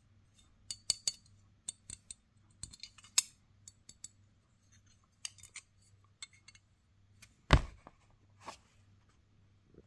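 Scattered light clicks and taps from a hand handling a small metal bottle opener, with one louder knock about three-quarters of the way through.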